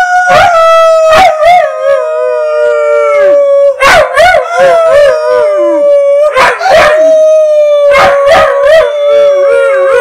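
East European Shepherd puppy howling along in a string of short, wavering howls, repeated several times, over a long, steady note that falls slowly in pitch.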